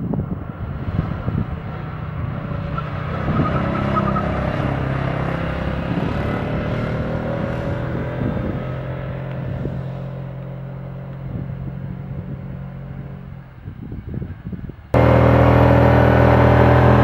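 Small 500 cc petrol engine of a child-size sports car running at speed with a steady engine note, easing off somewhat later on. About fifteen seconds in, it switches abruptly to a much louder, closer engine sound.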